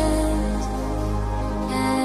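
Background music with slow, sustained chords over a deep held bass note.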